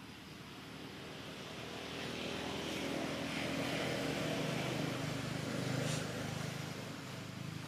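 A passing motor vehicle's engine: a low hum that grows louder, is loudest about four to six seconds in, then fades away.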